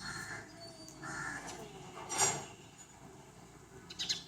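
A cat making a few short, harsh calls, the loudest about two seconds in.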